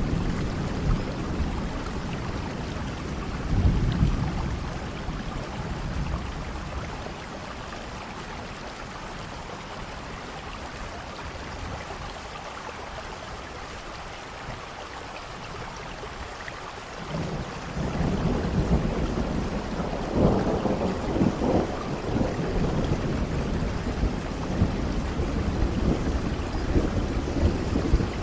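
Steady rain falling, with rolling thunder. A low rumble is loud near the start and fades, the rain carries on more quietly, and then the thunder swells again about seventeen seconds in and keeps rumbling.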